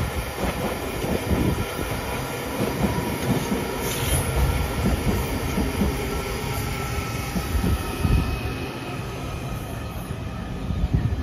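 A train running along the track, a steady rolling noise with an uneven run of wheel clicks over the rail joints.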